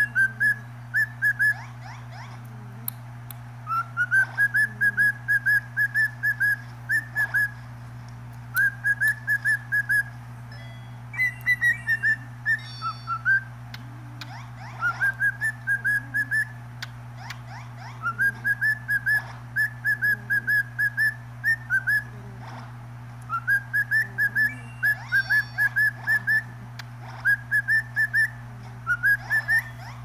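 Cockatiel whistling its song: runs of short, repeated high whistled notes at about three a second, most runs opening with a rise in pitch, with short pauses between runs. About halfway through, one phrase drops lower instead.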